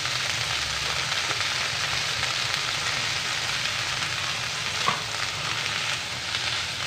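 Shredded cabbage and scrambled egg sizzling steadily in a hot non-stick pan as a wooden spatula stirs them, with one short knock of the spatula about five seconds in.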